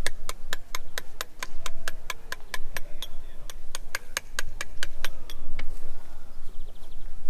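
Rapid, evenly spaced sharp knocks, about four to five a second, that stop about five seconds in, over a murmur of voices.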